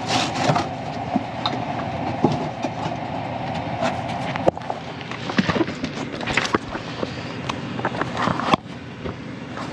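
Carrier gas furnace running with a steady mechanical hum, mixed with irregular knocks and clatter. A sharp knock comes about eight and a half seconds in, after which the sound is a little quieter.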